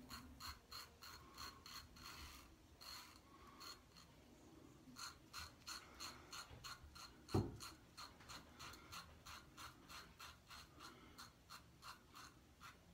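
Ming Shi Q Shave safety razor (a Futur clone) scraping through lathered stubble in quick, short strokes, a faint rasp with each stroke, about three a second. A single low thump about seven seconds in.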